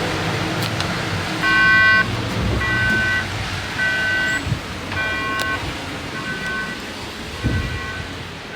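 A string of electronic beeps, about one a second, starting about one and a half seconds in and growing gradually fainter, over a low rumble of background noise.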